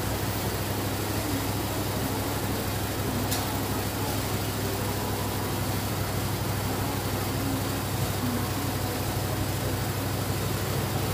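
A steady low mechanical hum with an even hiss, like a running motor or fan, and one sharp click about three seconds in.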